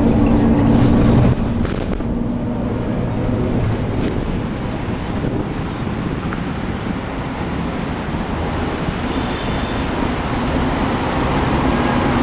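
Steady engine drone with a held hum that cuts off about a second in, then city road traffic: an even rush of car and bus engines and tyres on a wide urban road.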